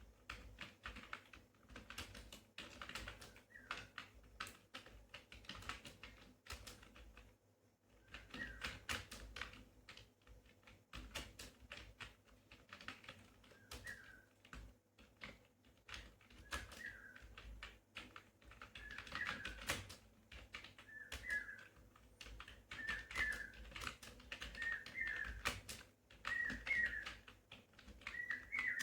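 Fast typing on a computer keyboard, a steady stream of key clicks with a brief pause about seven seconds in. A short high chirp repeats about every two seconds behind it and grows louder toward the end.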